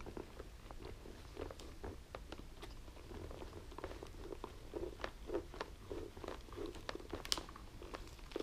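Fingers pressing wires and the padded fabric liner into a motorcycle helmet's seam: faint, irregular small clicks and crackles of plastic and fabric, with soft rubbing from about three seconds in.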